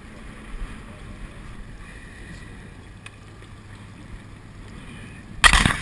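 Faint wind and water noise on an open boat's deck, then near the end a sudden loud burst of noise lasting about half a second.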